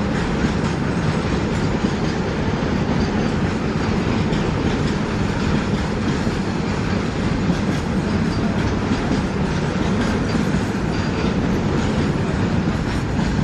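Freight train of flat wagons loaded with rails rolling past close by: a steady rumble with the clatter of wheels over the rail joints.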